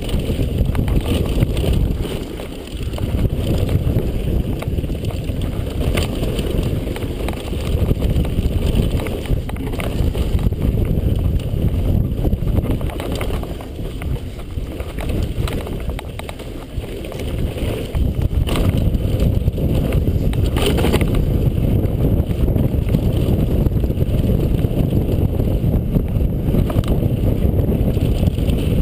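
Wind buffeting a helmet-mounted camera's microphone over the rumble and rattle of a mountain bike running fast down a dirt trail, with a few sharp knocks along the way.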